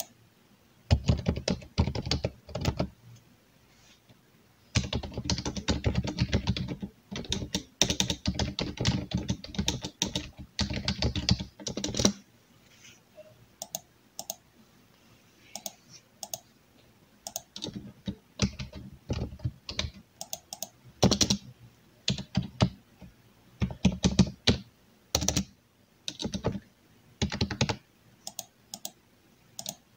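Typing on a computer keyboard: fast, dense runs of keystrokes for roughly the first twelve seconds, then slower, scattered key presses with short gaps between them.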